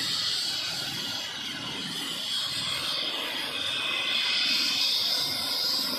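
Airbus Helicopters H135's turbine engines running with a steady high whine while its main rotor turns on the pad, the whine swelling gently.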